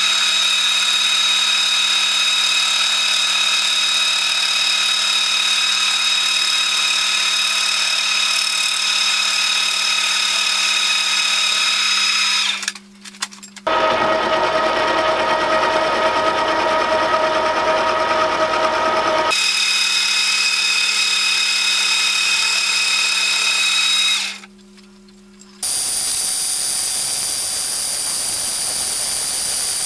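End mill on a milling machine cutting the wall of a gunmetal boiler-dome casting: a steady, ringing machining whine. Its pitch changes at cuts in the footage, with short quieter breaks about 13 and 25 seconds in.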